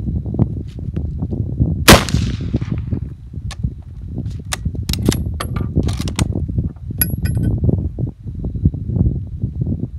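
A single shot from a Lee-Enfield .303 bolt-action rifle about two seconds in, with a short trailing ring. It is followed by a run of sharp metallic clicks and clacks as the bolt is worked to eject the spent case and chamber the next round, with a ringing clink near the end.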